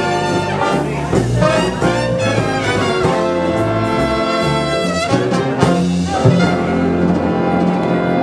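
Instrumental music led by a brass section of trumpets and trombones, playing held chords that change every second or so.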